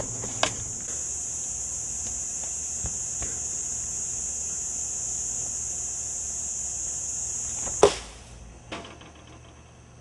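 A cicada's steady high-pitched buzz, with a few light knocks. The buzz stops abruptly at a loud thud nearly eight seconds in, and a softer knock follows about a second later.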